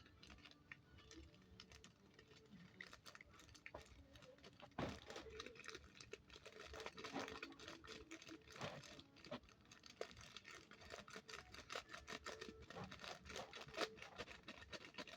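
Faint rustling and light patter of small foam beads being shaken and picked out of their container, with many scattered soft clicks and a few louder ticks.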